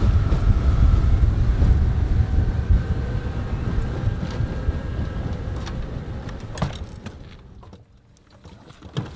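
Bass boat running at speed on its outboard motor: a steady engine and hull drone with wind rushing over the microphone, dying away over the last few seconds. A single sharp knock comes near the end.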